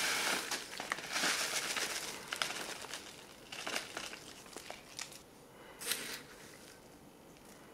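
Plastic pouch crinkling and rustling as freeze-dried chicken and rice is shaken out into a bowl, with the dry grains rustling as they fall. The sound is busiest in the first couple of seconds, then thins to a few short crinkles and fades.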